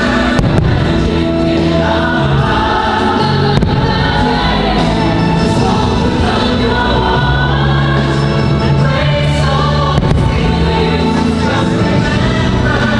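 Holiday show music with a choir singing over sustained chords, with a few sharp firework bangs under it.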